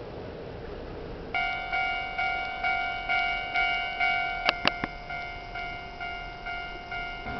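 Japanese railway level-crossing warning bell starting about a second in: a ringing ding repeated about twice a second, signalling that a train is approaching. Two sharp clicks about halfway through are the loudest sound.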